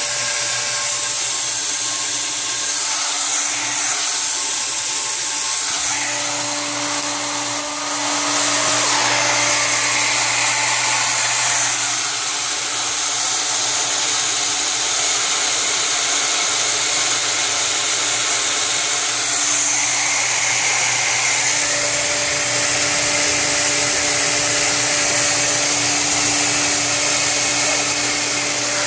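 Electric water pump running steadily, moving about 50 gallons a minute through PVC pipework: a continuous whirring hum with a hiss over it.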